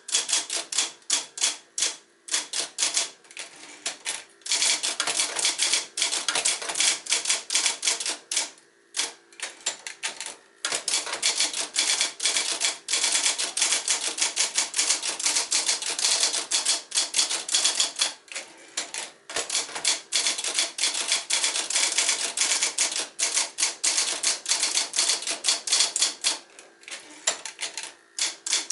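Sears Electric 1 portable electric typewriter, built by Nakajima, being typed on. Its keys strike in rapid runs of clicks, broken by brief pauses every few seconds, over a faint steady hum.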